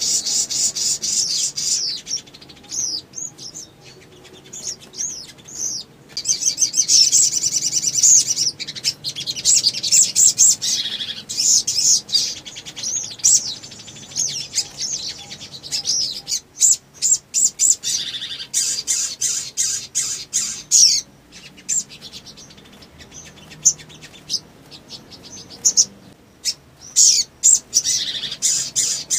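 A male olive-backed sunbird (sogon) singing in long, rapid bursts of high, thin chirps and trills, with short pauses between the bursts.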